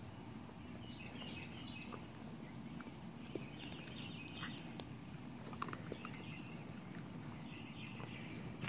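Puppies lapping water from bowls: scattered light clicks and splashes, a little louder near the end, with birds chirping in the background.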